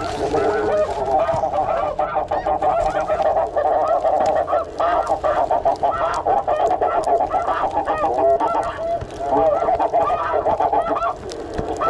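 A large flock of snow geese calling at once: a continuous chorus of many overlapping high honks.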